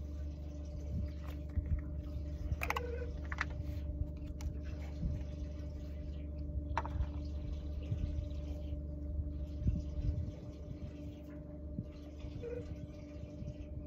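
Boat motor running steadily at trolling speed with a low hum, with water washing along the hull and a few sharp clicks.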